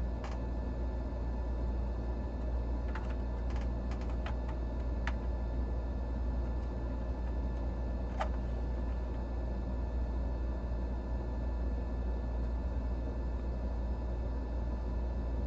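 Steady low hum with a few scattered light clicks and taps, most in the first five seconds and one about eight seconds in, as small parts and tools are handled on a repair bench.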